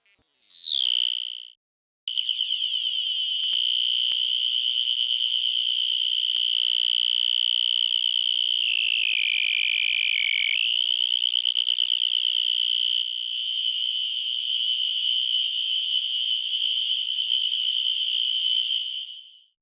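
Synthesizer oscillator (NI Absynth) playing a looped wave built from a sampled cricket chirp, heard as a high-pitched hum. It opens with a short falling sweep that cuts off. After a brief gap a steady tone holds, drops lower for a couple of seconds near the middle, and turns rougher and noisier in its last part.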